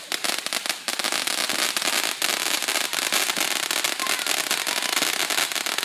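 Ground fountain firework spraying sparks with a dense, rapid crackle of many small pops that runs without a break.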